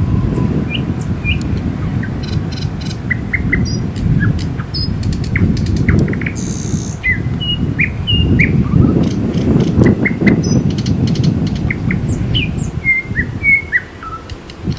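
Small songbird giving many short chirps and quick sweeping call notes, scattered throughout, over a constant low rumble.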